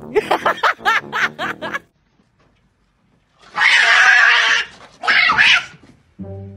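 Geese honking in a quick run of short calls, then after a pause a cat hissing hard for about a second and a half, followed by a shorter harsh screech.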